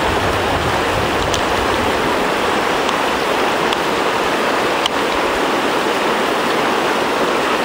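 Steady rushing of a shallow, fast river running over riffles, with a few faint ticks.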